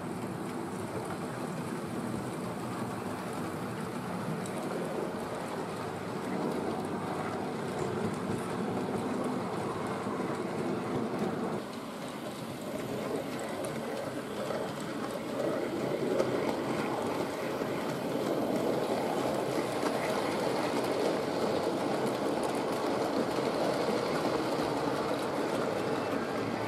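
Model train running along the layout track: a small tank locomotive hauling goods wagons, making a steady rumble of wheels on rail and motor hum. It dips briefly about halfway through, then runs a little louder.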